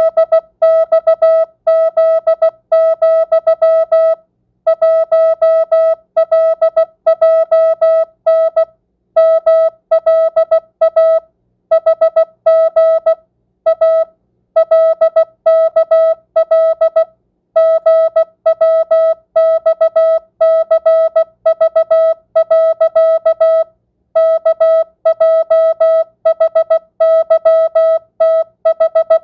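Morse code (CW) practice tone at 16 words per minute, non-Farnsworth: a single-pitch electronic beep keyed into short dits and longer dahs, sent in letter groups with brief pauses between words.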